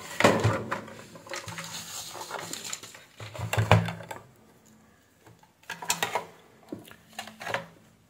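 Handling noise from a flexible membrane keypad and its ribbon cable being picked up and worked by hand: scattered light plastic clicks, taps and rustles, with a quiet spell a little past the middle.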